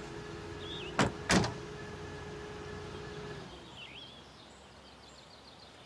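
Two doors of a Land Rover Defender slamming shut about a third of a second apart, over a low steady hum that fades out about three and a half seconds in. A bird chirps briefly a couple of times.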